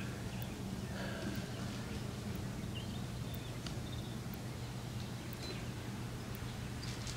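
Quiet outdoor ambience: a steady low hum with faint scattered distant sounds and no distinct event.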